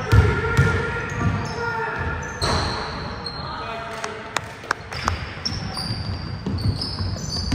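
Basketball bouncing on a hardwood gym floor in repeated thuds during a game, with short high sneaker squeaks and players' and spectators' voices echoing in the hall.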